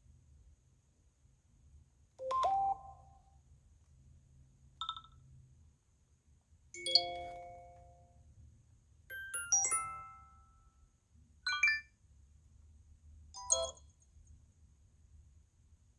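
Short iPhone 11 Pro alert tones played one after another: six brief chimes and jingles, each different, a second or two apart.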